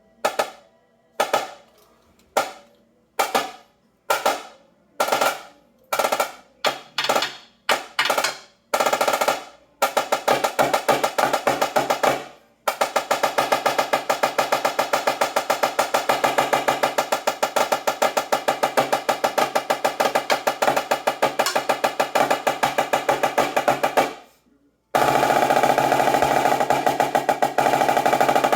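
Snare drum played with single strokes about once a second that speed up, then break into a fast roll. The roll stops briefly, resumes for a long stretch, fades off, and starts again near the end.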